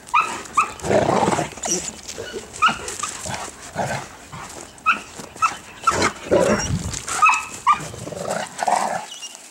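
Old English Sheepdogs, an adult and a puppy, playing: many short, high yips and barks scattered through, with rougher lower sounds between them.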